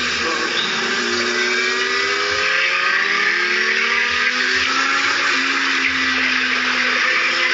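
Heavy wind rush on the microphone at track speed over a Kawasaki Z750's inline-four engine, whose note slowly climbs in pitch under acceleration.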